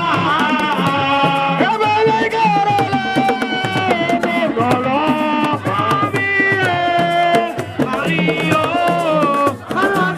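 Music: a gliding melody over steady hand-drum beats.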